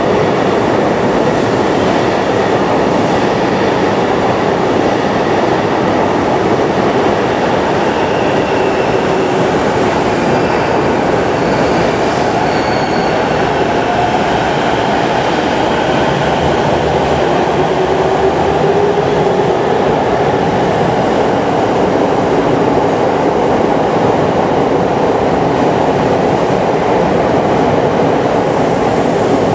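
JR East 209-500 series electric commuter train pulling out of an underground station platform and gathering speed, with a steady, loud rumble of wheels on rail. Faint rising whine tones come through as it accelerates away.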